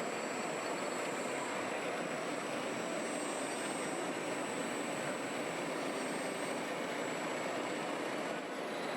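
Steady machine running noise, even throughout, with a faint high whine that shifts slightly in pitch now and then.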